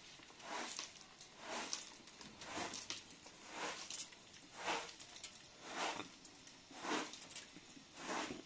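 Straw broom sweeping across rugs in steady strokes, a swish about once a second.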